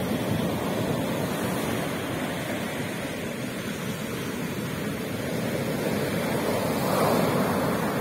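Sea waves breaking on a beach and foam washing up the shore: a continuous rushing surf that swells louder about seven seconds in as another wave breaks.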